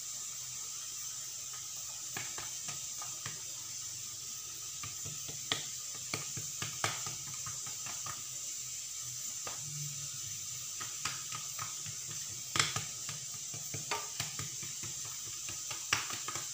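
Hands pressing and stretching a strip of melwi dough on a granite countertop: scattered soft taps and pats of fingers on the stone over a steady background hiss and low hum.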